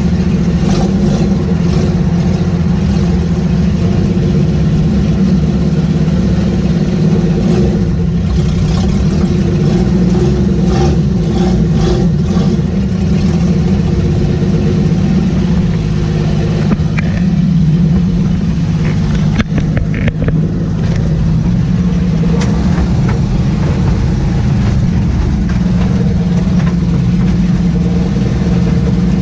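Old Willys truck's engine running with no muffler under the cab floor, heard from inside the cab as the truck drives: a steady loud drone that dips briefly about twenty seconds in.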